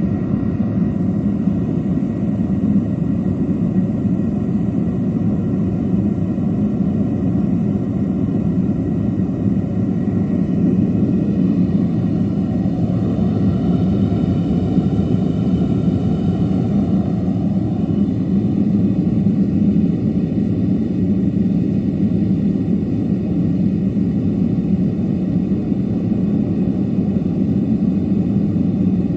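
Fuel-fired metal melting furnace running with its burner going full, a steady deep rush of flame and air with no change in level.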